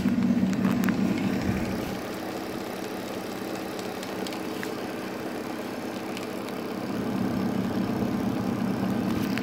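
Sun distributor tester's drive motor turning a 1967 Oldsmobile 4-4-2 distributor at about 200 RPM: a steady mechanical hum that gets slightly louder about seven seconds in.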